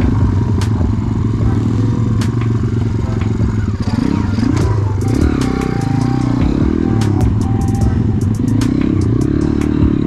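Pitbike engine running while riding a rough trail, its revs rising and falling, with sharp clicks and rattles throughout, more of them in the second half.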